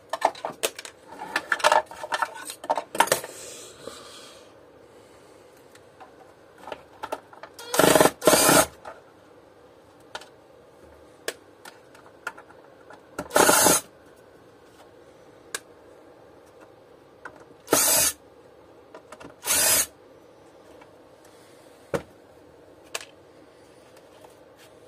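Plastic parts of a vacuum cleaner's housing and wiring being handled during disassembly: clicks and rattles, broken by five short, loud bursts of noise about half a second each.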